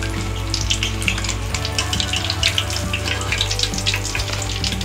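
Hot oil sizzling around samosas and spring rolls as they deep-fry, with many small pops. A steady low hum runs underneath.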